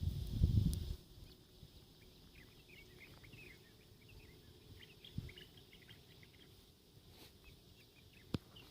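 Small songbirds chirping in many short, quick notes that overlap. A low wind rumble on the microphone covers the first second, and there is a sharp click near the end.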